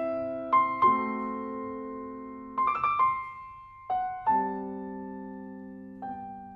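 Background piano music: slow notes and chords struck a few at a time, each left to ring out and fade.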